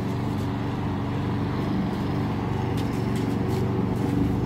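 Lawn mower engine running steadily at an even speed.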